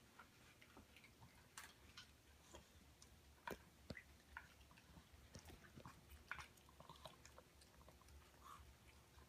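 A pet chewing and crunching dry food from a bowl: faint, irregular crunches and small clicks.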